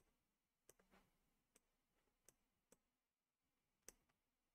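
Faint computer mouse clicks, about half a dozen spread unevenly over a few seconds, against near silence.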